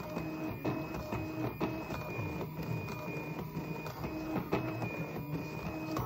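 Arduino-driven stepper motors of a Rubik's cube solving machine turning the cube's faces in quick succession: a pitched whine that changes note from one move to the next, with a sharp click at the start of each move.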